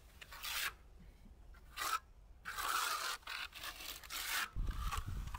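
Bonding cement being spread and pressed onto a cinder block wall: a run of about five short, rough scraping strokes against the block.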